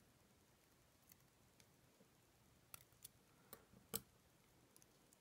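Faint, scattered small metallic clicks, about seven, as tweezers set pin-tumbler pins into the brass plug of an ASSA Twin 6000 lock cylinder while it is re-pinned. The loudest click comes about four seconds in.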